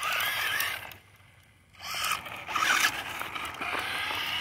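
Remote-control car's motor whining in short bursts as it is driven, with its pitch rising and falling. It falls quiet for about a second, then comes back with a whine that climbs steadily in pitch as the car speeds up.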